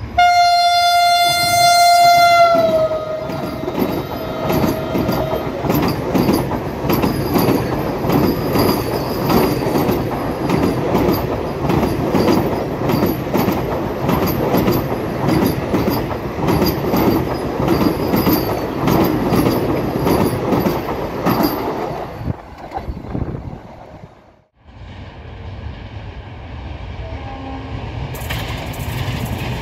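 Vande Bharat Express trainset sounding one long horn note whose pitch drops as it reaches the camera, then rushing past at high speed with fast clickety-clack of wheels over the rail joints for about twenty seconds. After a break, the rumble of a second, locomotive-hauled train grows as it approaches.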